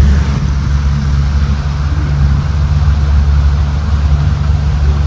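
Tour boat's engine running steadily under way, a low, even hum with a light hiss of water and air over it.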